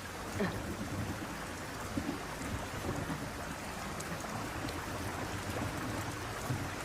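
Rain falling steadily, an even hiss with a faint low rumble beneath it.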